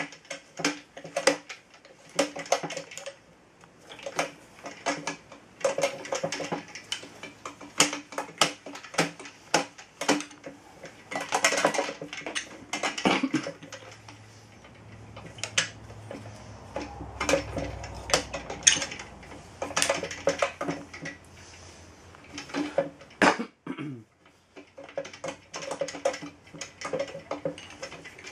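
Irregular metallic clinks, taps and knocks of drill press parts being handled and fitted together: the table bracket worked onto the steel column and its crank handle turned.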